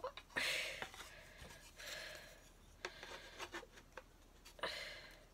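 Cardboard and paper packaging being handled: several short rubbing and sliding rustles with a few light clicks.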